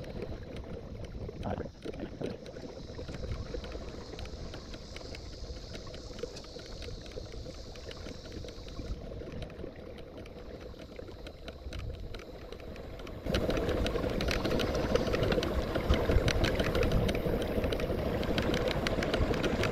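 Water noise around a pedal-drive kayak under way, with a low rumble from wind on the microphone. About two-thirds of the way in, the sound cuts abruptly to a louder, busier stretch of the same kind.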